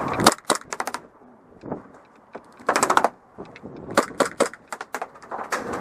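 Airsoft guns firing several short full-auto bursts, each a quick string of sharp clicks, a second or so apart.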